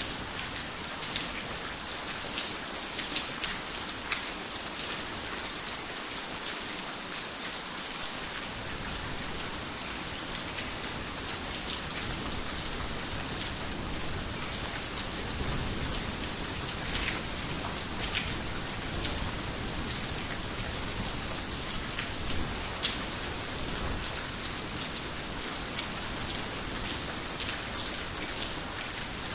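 Heavy rain falling on a garden house: a steady hiss with many individual drops tapping. A low rumble comes in after about eight seconds.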